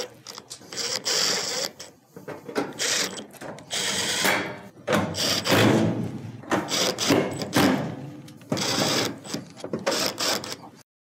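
Cordless impact driver hammering screws into the steel rear panel of an electric range, in several short bursts with pauses between.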